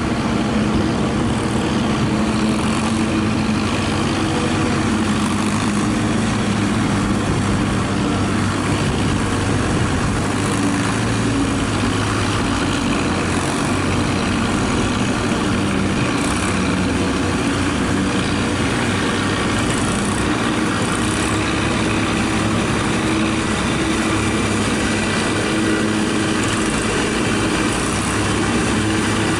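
Tractor engines and a trailed forage harvester running steadily under load while chopping maize, a constant low engine hum over a noisy whir.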